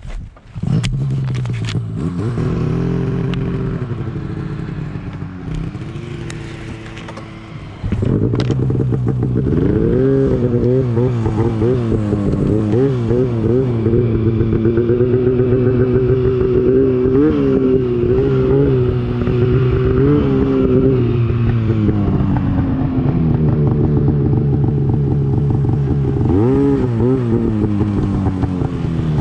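Two-stroke mountain snowmobile engine heard from the rider's seat. It comes in about half a second in and runs at part throttle for several seconds, then is opened up sharply about eight seconds in. After that the revs rise and fall with the throttle as the sled rides through deep snow.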